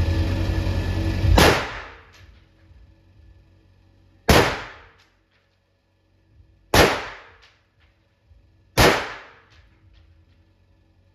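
Four rifle shots from a Heckler & Koch MR223 firing .223 FMJ rounds into a Hardox 500 steel armor plate, spaced two to three seconds apart, each sharp report dying away in a short echo. Music plays until the first shot.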